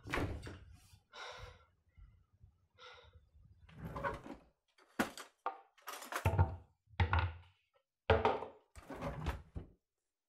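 A string of separate knocks and thuds, about a dozen short ones at irregular intervals, the heaviest and deepest in the middle and near the end.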